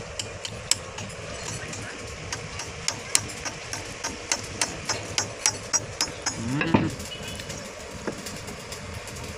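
Quick, steady hammer blows on the steel worm shaft of a mustard oil expeller, about three a second, as the shaft is knocked into its bearing housing.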